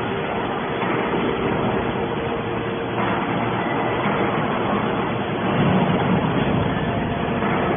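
Hydraulic can baler running: a steady mechanical noise with a faint constant hum, swelling briefly about six seconds in.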